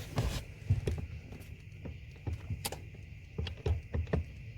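Irregular light knocks and clicks of handling and movement around the car's brake pedal and footwell, about ten in all, over a steady faint high hum.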